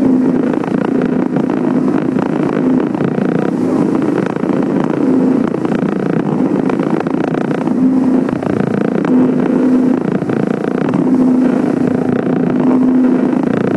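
Outboard engine of a Boston Whaler Outrage 240 motorboat running under way through rough sea, its steady drone fading in and out, over loud rushing water.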